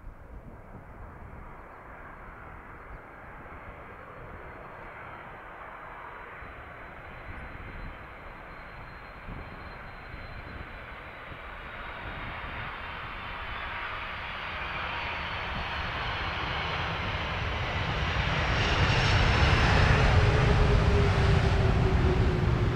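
Boeing 747-400 jetliner's four turbofan engines (GE CF6-80C2) landing and rolling past. The noise grows steadily louder as the jet approaches and touches down, and is loudest near the end as it passes close. A whine there drops in pitch as it goes by.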